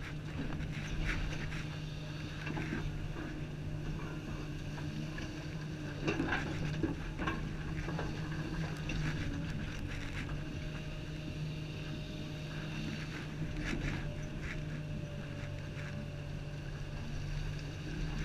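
Komatsu 350 excavator's diesel engine running steadily under load, heard from inside the cab while the operator digs and moves dirt. Scattered clunks and rattles come through, loudest about six to eight seconds in.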